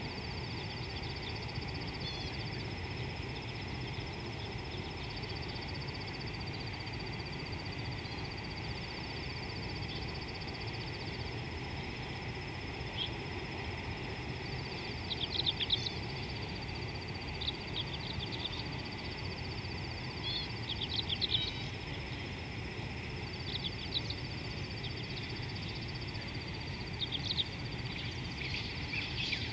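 Insects trilling steadily in a high, unbroken chorus over a low background rumble. Short bird chirps come in bunches through the second half.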